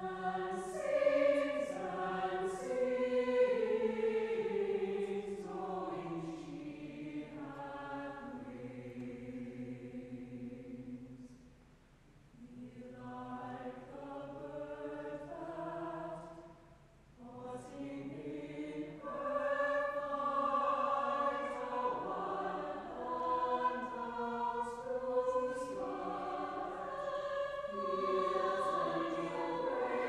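Small choir singing in sustained, slowly moving phrases, with short breaks between phrases about twelve and seventeen seconds in.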